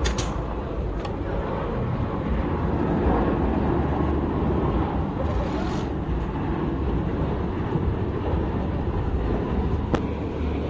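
Twin-engine jet airliner on final approach, its engines a steady rumble that swells for a few seconds as it passes closer, with a short click near the end.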